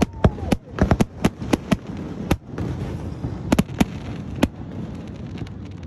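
Aerial fireworks bursting: a quick string of sharp bangs and crackles, then a few more spaced bangs, dying away near the end.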